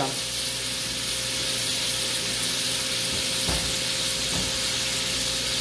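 Swordfish fillets simmering in a frying pan of olive oil and white wine, the sauce bubbling and sizzling steadily.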